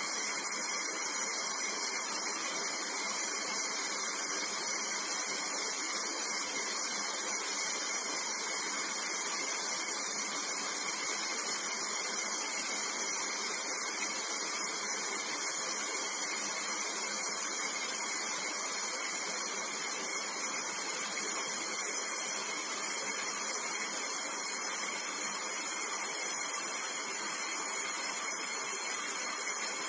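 Oxy-fuel brazing torch burning with a steady hiss as it heats copper joints to unbraze an air conditioner's four-way reversing valve.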